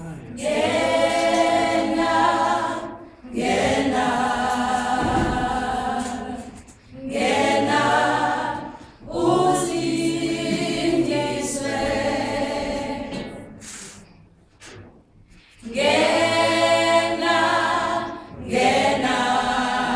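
A small mixed group of women and men singing a cappella in harmony, in phrases a few seconds long with short breaths between them and a longer pause of about a second and a half near the end.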